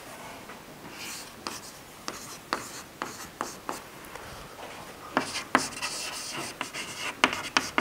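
Chalk writing on a blackboard: scattered taps and scrapes at first, then a quicker run of strokes from about five seconds in as a word is written out.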